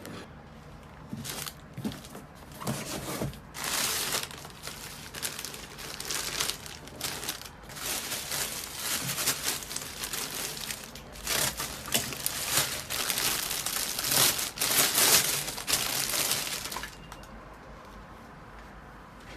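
Packaging crinkling and rustling in irregular bursts as it is handled, stopping near the end.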